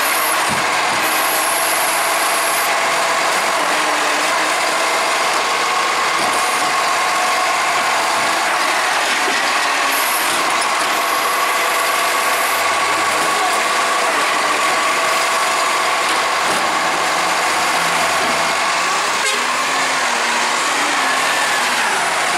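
2017 Iveco Acco garbage truck with a Bucher side-loader body running while its hydraulic arm grabs, lifts and tips a wheelie bin into the hopper, with a steady whine over the engine. Near the end the truck moves off.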